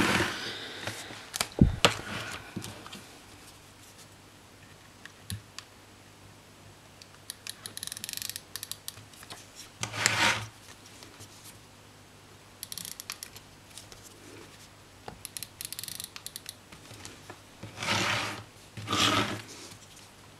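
Paper handling on a spiral-bound planner: pages and sticker sheets rustling and scraping in short bursts, with light clicks in between, as the planner is turned round and stickers are worked on. A faint steady hum sits under it.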